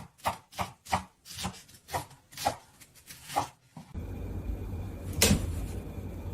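A quick run of short taps or knocks, about three a second, that stops about four seconds in. A steady low hum follows, with a single sharp click about a second later.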